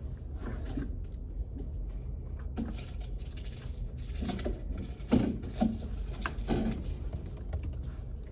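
Room ambience of a quiet study space: a steady low hum with a handful of scattered desk taps and clicks, the sharpest about halfway through.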